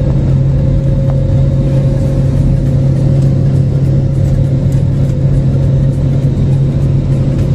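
Airliner cabin noise during the climb just after takeoff: the engines make a steady, loud drone with a deep hum and a thin constant higher tone over a rush of air.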